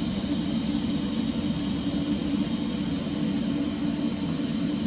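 Welding arc running steadily while a circular weld is laid on an exhaust pipe: an even, crackling hiss with no breaks.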